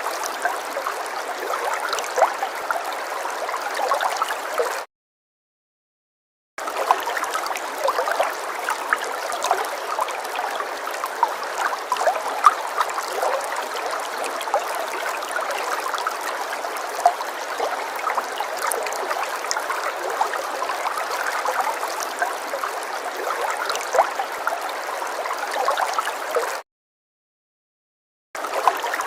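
Running stream water gurgling steadily. It cuts to complete silence twice for nearly two seconds each, about five seconds in and near the end.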